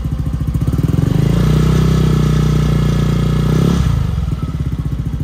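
Yamaha NVX scooter's 155 cc single-cylinder engine on an aftermarket slip-on exhaust, idling with an even pulse. About a second in it is revved, held up for a couple of seconds, and then drops back to idle around four seconds in.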